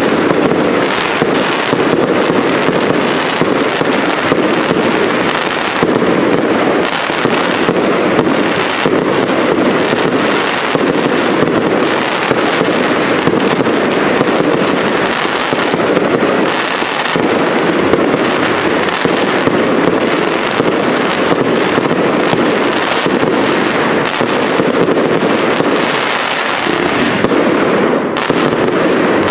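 Aerial fireworks display: a dense, continuous barrage of shell bursts and crackling, many bangs in quick succession with no pause.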